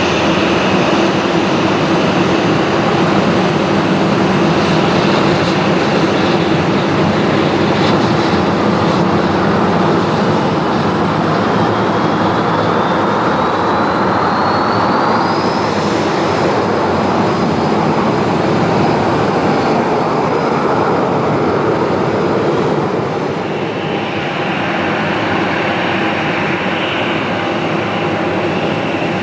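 Airbus A320 jet engines running loud and steady. A thin whine rises in pitch about halfway through, then holds. The engines get a little quieter near the end.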